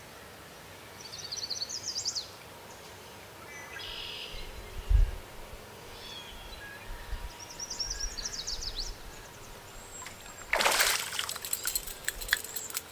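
Songbirds singing in two short trilled bouts, with a low thump about 5 s in. About 10.5 s in, a hooked fish splashes hard at the water's surface as it is reeled to the bank, followed by smaller splashes and sloshing.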